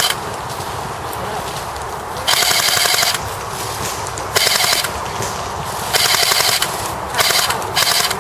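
A&K M249 SAW electric airsoft gun firing short bursts on full auto, about four or five rapid bursts of under a second each, the first about two seconds in.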